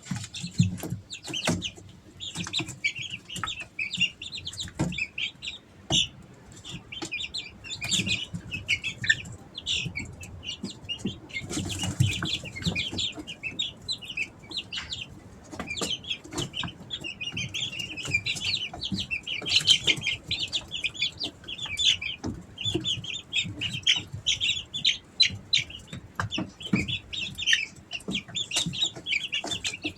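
A group of three-week-old Easter Egger chicks peeping and chirping without pause, many short high calls overlapping, with scattered sharp taps and knocks among them.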